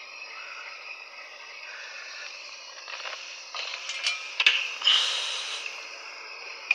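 Steady hiss of refrigerant gas expanding inside a running fridge's sealed system. Just after halfway there are handling knocks and clicks and a louder rustling burst around the compressor pipework.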